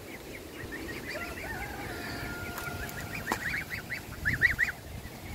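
Young goslings and ducklings peeping: runs of short, high-pitched cheeps, growing louder and quicker about four seconds in.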